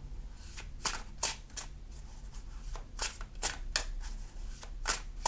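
A deck of tarot cards shuffled by hand: a string of short, light, irregular card snaps, a few a second.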